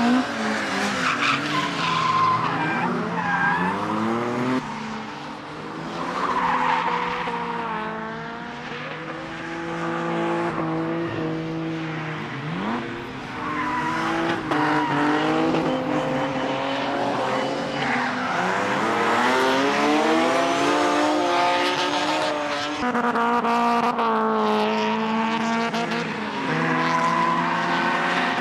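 Several drift cars on track at once, their engines revving up and down through the gears, with tyre squeal as they slide. The sound eases off for a few seconds early on, then builds again as the cars come closer.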